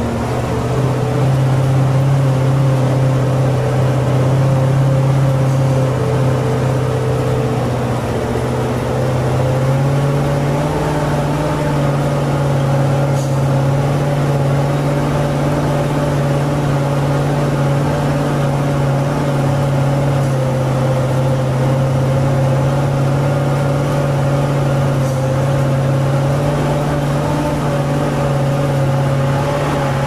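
Nissan V8 engine of an overloaded 6x6 logging truck running steadily under load, heard from inside the cab. Its note rises a little about ten seconds in, then holds steady.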